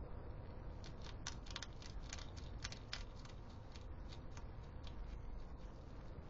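European hedgehog eating dry food pellets from a feeding tray: a run of crisp, irregular crunching clicks that starts about a second in and is thickest over the next two seconds.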